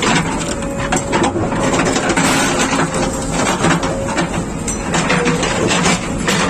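JCB 3DX Plus backhoe loader's diesel engine running under load, with frequent irregular knocks and scraping of the bucket working through the crossing's ballast and fill.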